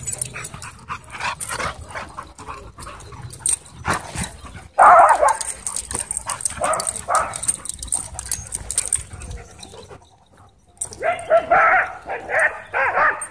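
Several dogs barking and yipping as they play, with a loud outburst about five seconds in, a few more barks around seven seconds, and a run of barking near the end.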